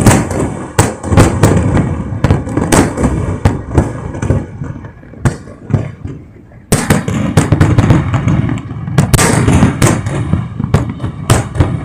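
A close-range fireworks display: shells bursting in quick, irregular bangs with crackling and rumble between them. The bursts thin out in a lull about halfway through, then pick up again in a dense barrage.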